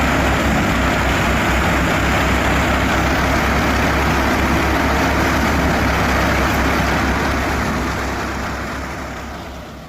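Tractor-powered wheat thresher running: the Al Ghazi tractor's engine with a low rumble under the thresher's dense, steady whirring and rushing. The sound fades out over the last few seconds.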